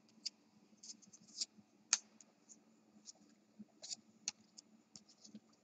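Trading cards being handled and flipped through a stack: scattered soft clicks and snaps of card against card, with one sharper snap about two seconds in.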